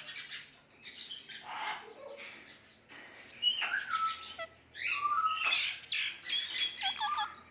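Indian ringneck parakeet whistling and chirping in several bursts, with some calls sliding up in pitch and a few short held whistles.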